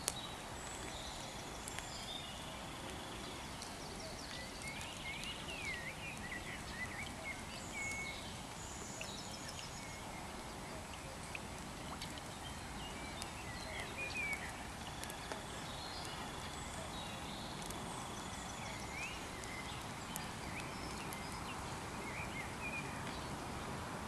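Several songbirds singing: scattered chirps, quick rising and falling calls and short trills, with a held whistled note about a second in and again around fifteen seconds, over a faint steady hiss.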